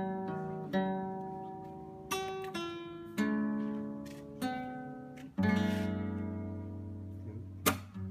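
Solo acoustic guitar playing an unaccompanied introduction: chords struck about once a second, each left to ring and fade before the next.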